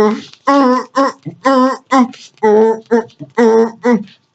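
A high voice singing a melody in short, wavering phrases with no accompaniment.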